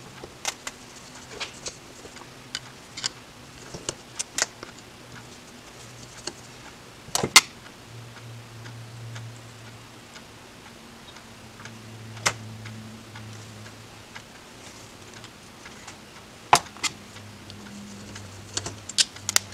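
Scattered small metallic clicks and taps of a screwdriver and loose linkage rods and clips being worked off an Edelbrock 1406 carburetor's aluminium body, with sharper clicks about seven, twelve and sixteen seconds in. A faint low hum runs underneath.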